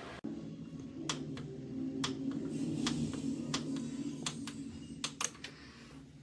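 About a dozen irregular sharp clicks, like keys being tapped, over a low steady murmur.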